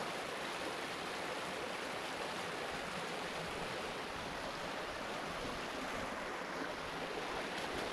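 Water rushing out through a sluice outlet into the creek, a continuous, even gushing.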